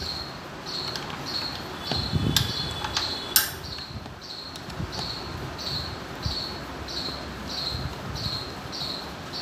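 A cricket chirping steadily, about two chirps a second, over a few sharp clicks of a screwdriver working the screws of a scooter's plastic air filter cover; the loudest click comes about three and a half seconds in.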